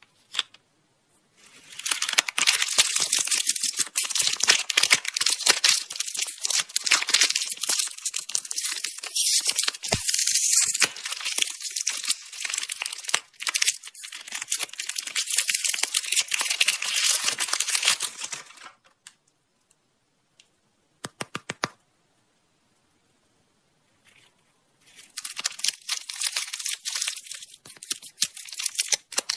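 Candy wrappers crinkling and tearing as packets are opened and handled. The crinkling stops about two-thirds of the way in, a few quick clicks follow, then it starts again near the end.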